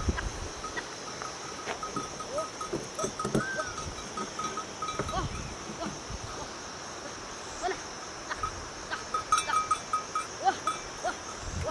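Bells worn by a sheep herd clinking irregularly at one pitch as the animals move, over a steady high-pitched hiss.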